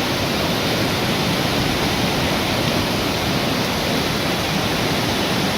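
Steady rushing water, like a river or waterfall, a loud even noise with no breaks.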